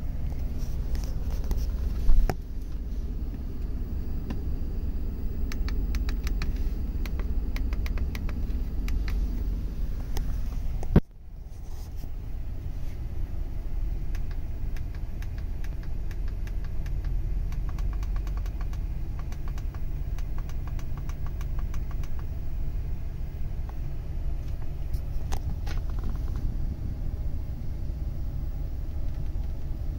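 2015 Ram 2500 pickup's engine idling, heard inside the cab as a steady low rumble. A run of light clicks and two sharp knocks, about two and eleven seconds in, sit over it.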